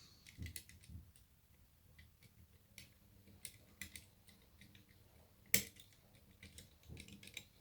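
Faint, irregular small metal clicks and scrapes of a thin-wire homemade pre-lift pick and tension wrench working inside an ERA Fortress lever lock as it is picked, with one sharper click about five and a half seconds in.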